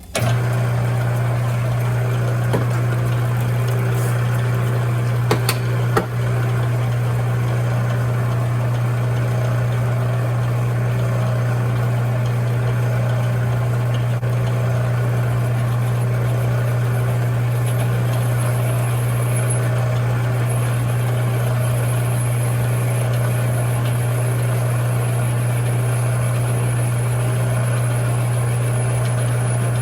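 Lathe running with a steady hum while a 14 mm spark plug socket is turned down to a smaller outside diameter, with a few sharp clicks in the first few seconds and a faint high whine joining about halfway through.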